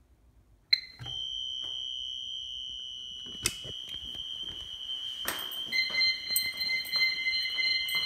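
Keypad panic button triggering a burglar alarm: after a sharp click, a Wheelock HSR Exceeder horn strobe starts sounding a continuous, steady high-pitched alarm tone about a second in. A second, lower tone joins about two-thirds of the way through, with a few scattered clicks.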